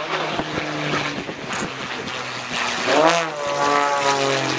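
Extra 260 aerobatic monoplane's piston engine and propeller running through a display manoeuvre. The engine note holds steady, then about three seconds in it drops and climbs again sharply before settling into a steady tone.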